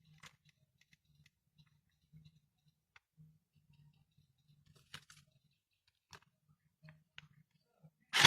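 Faint, scattered clicks and taps from handling a replica M416 rifle, a few of them over several seconds, then one loud, sharp crack right at the end.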